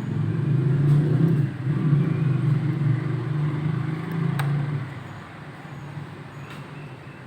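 A motor vehicle's engine running close by, a low wavering drone that fades away about five seconds in. There is a single sharp click shortly before it fades.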